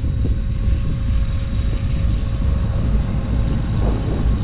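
Wind buffeting the microphone, heard as a steady low rumble, with a faint steady hum above it.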